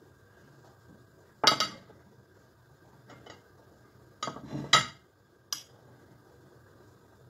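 Ceramic dishes and a spoon knocking and clinking as they are handled on a wooden board. There is a sharp knock about a second and a half in, a quick cluster of knocks around four and a half seconds, and a single click a second later.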